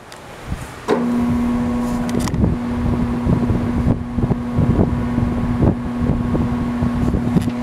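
Enco 14" x 40" geared-head engine lathe switched on about a second in and running: a steady hum from the motor and gearhead over an irregular low rumble and knocking.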